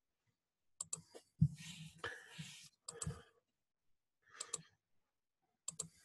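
A handful of quiet, sharp computer clicks, several in quick pairs, as slides are advanced, with a brief scuffing noise about a second and a half in.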